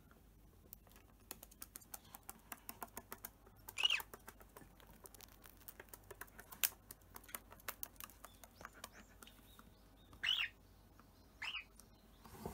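Cockatiel giving short chirps, one about four seconds in and two near the end, over a run of small, quick clicks.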